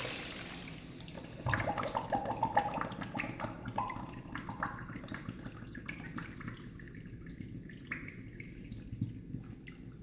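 Kohler toilet gurgling for a long time at the end of a flush: the rush of water dies away in the first second, then irregular gurgles and drips go on as the bowl settles.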